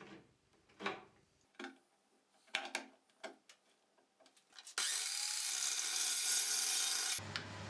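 A few short clicks and scrapes as a flange bearing block is fitted by hand. About five seconds in, a metal-cutting chop saw cuts through steel pipe with a loud harsh hiss for about two seconds, then gives way to a lower steady hum.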